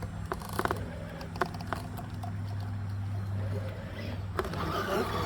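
Radio-controlled crawler truck running on the course: a steady low motor hum with several sharp knocks, a cluster in the first couple of seconds and another near the end.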